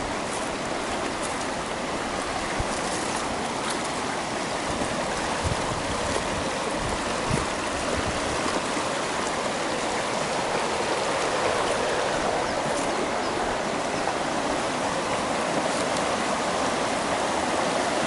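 Running water of a stream, a steady rush without a break.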